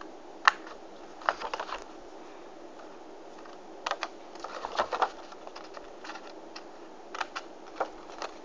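Scissors snipping short cuts into the edge of a red paper owl cut-out: sharp clicks in small clusters with pauses between, a quick run of snips about a second in and another around four to five seconds in.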